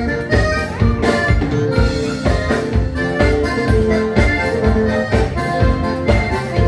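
Live gaúcho dance band playing a vanerão: accordion over bass and drums with a steady, quick beat.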